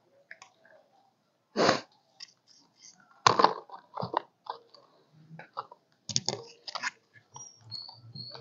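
Hand pruning shears snipping plant stems and leaves: a series of short, crunchy cuts and clicks, the loudest about two and three seconds in.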